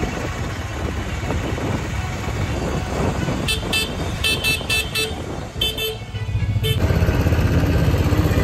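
Auto-rickshaw's small engine running while riding in traffic, with a horn tooting in quick short beeps in the middle. Near the end the engine rumble gets louder.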